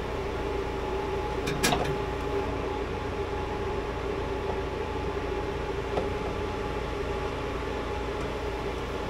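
Steady mechanical hum with a short knock about one and a half seconds in.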